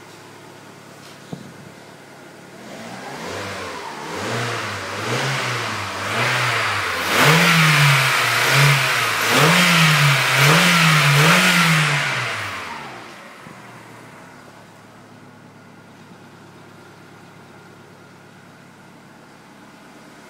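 Volkswagen Golf's 1.6 16-valve four-cylinder petrol engine idling, then revved in a run of quick blips one after another, each climbing higher and louder, before dropping back to a steady idle about 13 seconds in.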